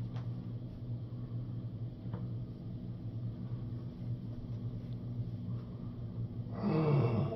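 A steady low hum, with a louder sound sliding down in pitch near the end.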